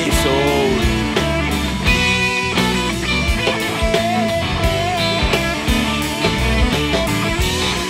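Rock band playing an instrumental passage: a guitar line with bending notes over a drum kit's steady beat.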